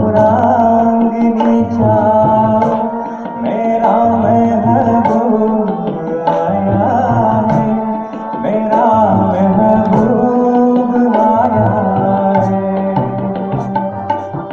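A man singing a Hindi film song into a microphone, accompanied by tabla and harmonium. The tabla keeps a steady rhythm of low bass strokes under the held harmonium notes.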